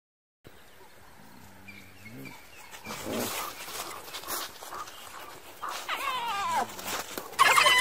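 African wild dogs calling with high-pitched yelps and twitters while the pack mobs a spotted hyena. A string of falling yelps starts about six seconds in, and louder arching calls come near the end.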